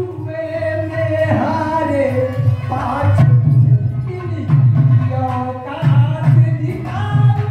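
A man singing a folk narrative through a microphone and PA, holding and bending long notes, over a steady hand-drum rhythm.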